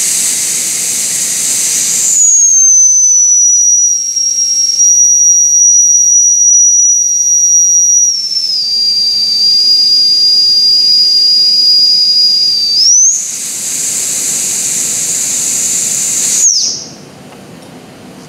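Model steam engine's boiler whistle blowing with a rush of steam hiss, its pitch changing as the valve is opened by different amounts. It starts breathy, settles into a clear high whistle that steps down in pitch about eight seconds in, turns breathy again, then cuts off sharply near the end.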